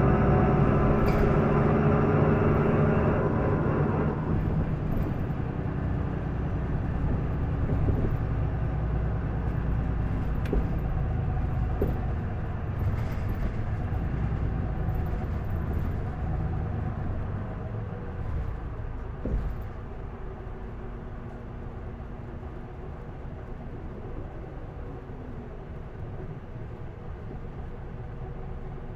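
Isuzu Erga city bus's diesel engine heard from inside the cabin, working hard for about the first four seconds, then easing off as the revs drop. The bus then runs on more quietly, getting gradually softer, with a few light knocks and rattles.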